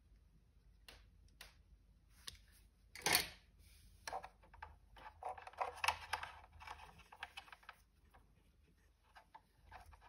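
Faint scattered clicks and small rustling noises from handling wire, solder and a pen-style soldering iron while tacking a speaker wire onto a speaker terminal, with one louder burst of noise about three seconds in.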